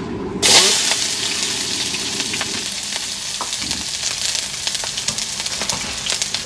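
Chopped onion, garlic and red chillies hit smoking-hot oil in a wok about half a second in, setting off a loud sizzle that keeps going. A spatula stirs and scrapes them through it, with frequent short clicks.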